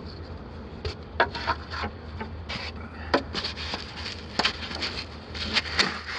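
Irregular knocks, taps and scrapes of close handling in a cramped space, over a steady low hum.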